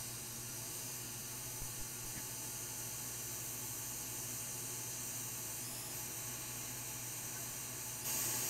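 Hot air rework station blowing a steady hiss over a circuit board while desoldering a chip, with a low hum beneath it; the hiss gets louder near the end.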